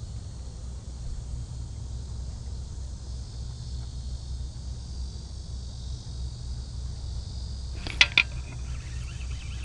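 Steady outdoor background of low rumble and high hiss, with two sharp metallic clinks close together about eight seconds in.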